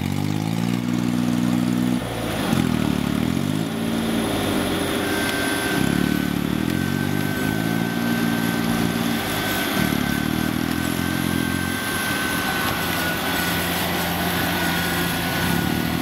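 Rice combine harvester's diesel engine running under changing load, its speed rising and falling again and again. A thin, steady high whine joins in about a third of the way through.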